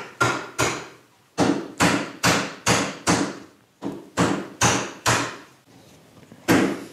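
Mallet striking a bench chisel, chopping out mortise waste in solid cherry: about a dozen sharp knocks, roughly two a second, with a short pause near the end.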